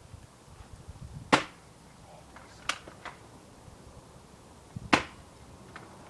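BB gun firing at a drink can: two sharp cracks about three and a half seconds apart, with a few fainter clicks between them.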